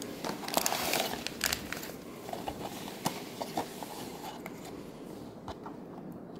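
Cardboard blind box and its plastic-wrapped contents being handled: a dense run of crinkling and small clicks as the box is opened in the first two seconds, then scattered light taps and ticks as the foil bag drops onto the table and the card is drawn out.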